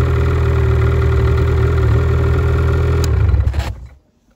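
Rotax 850 E-TEC two-stroke twin of a Lynx Rave RE 850 snowmobile idling steadily at about 1150 rpm. It is switched off about three and a half seconds in and dies away within half a second.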